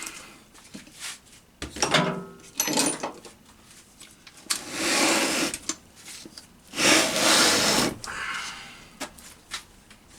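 Power tool, an impact gun, run in several short bursts to spin the case bolts out of a Honda EP3 Civic Type R gearbox; the two longest bursts each last about a second, near the middle.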